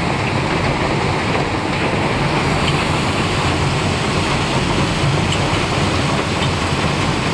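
Vertical shaft impact (VSI) crusher running, a loud, steady rumbling roar with faint scattered clicks.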